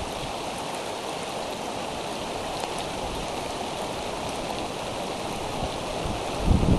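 Steady rain falling, an even hiss, with a louder low rumble near the end.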